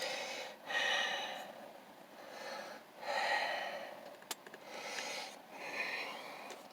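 A man breathing heavily close to the microphone: four or five audible breaths, each about a second long, with a single sharp click about four seconds in.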